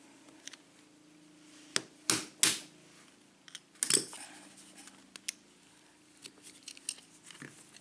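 Small metal clicks and snaps of hand tools working the retaining clip off a Sargent lock cylinder, with louder snaps about two seconds in and again about four seconds in, over a faint steady hum.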